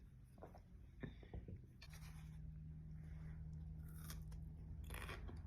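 Faint rustling and small clicks of food and its packaging being handled at a meal, with brief rustles about four and five seconds in. A low steady hum comes in about two seconds in.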